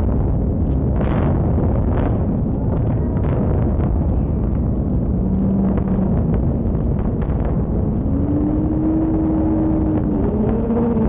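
Steady low rumble of the Kingdome's implosion as the concrete dome collapses, with wind noise on the microphone and scattered faint pops from the charges. From about five seconds in, a few held tones bend upward in pitch over the rumble.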